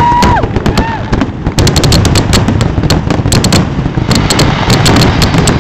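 Fireworks finale barrage: aerial shells and crackling effects bursting in rapid succession, many sharp reports a second over a continuous rumble, with a brief whistling tone at the very start.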